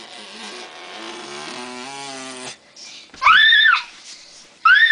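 A young girl squealing in play: two loud, high-pitched shrieks, each rising and then falling, about three seconds in and near the end. Before them comes a quieter, lower voice-like drone with a hiss.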